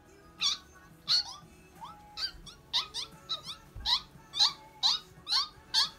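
A child making a rapid string of short, high-pitched squeaks with the voice, imitating a guinea pig. The squeaks come faster after the first second or so.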